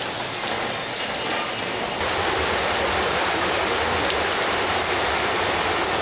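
Steady rain falling, a little louder from about two seconds in.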